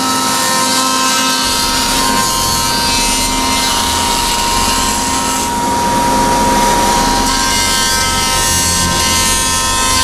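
A shop machine with an electric motor running steadily, giving a constant high whine over an even rushing noise.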